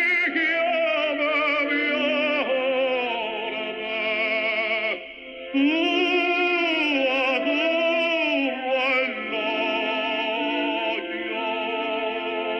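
Background music in an operatic style: long held notes with a wavering vibrato, dropping out briefly about five seconds in.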